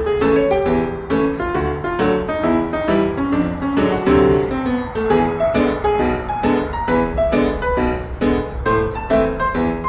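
Background music: a piano piece played in quick, evenly paced notes.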